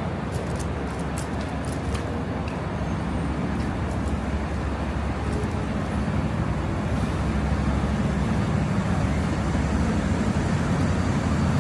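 City street traffic: a steady low rumble of passing vehicles that grows a little louder in the second half, with a few faint ticks in the first two seconds.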